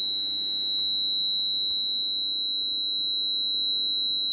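Honeywell alarm panel's sounder giving one unbroken, high-pitched steady tone, set off by opening the armed back-door delay zone.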